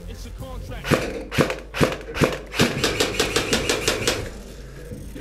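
Airsoft gun firing: five single shots in quick succession, then a rapid automatic burst of about a second with a motor whine under it.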